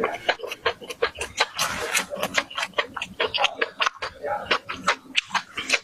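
Close-up crunchy chewing of fried food: a dense run of irregular crisp crunches and mouth clicks, several a second.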